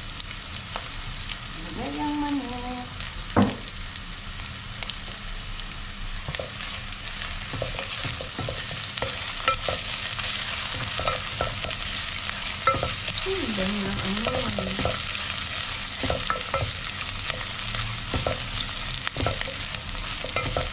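Sliced onion and ginger sizzling in oil in an amber glass pot, stirred with a wooden spoon that scrapes and now and then knocks sharply against the pot. Through the steady sizzle come scattered clicks and a few louder knocks.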